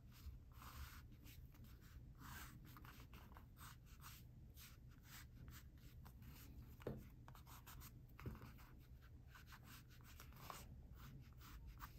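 Faint scratching of a drawing tool making short sketching strokes in quick succession, with two slightly louder ticks about seven and eight seconds in.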